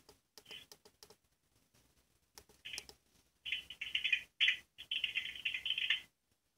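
A Sangean DAB+ radio tuned to channel 10D gives a few short clicks, then choppy, stuttering bursts of broken-up sound that cut off suddenly about six seconds in. This is the break-up and muting of a DAB+ receiver on a weak, marginal signal.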